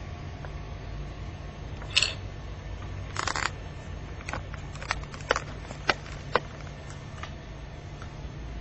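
Sharp, irregular clicks over a steady low hum. There is one click about two seconds in, a quick cluster a second later, then about ten single ticks a fraction of a second apart.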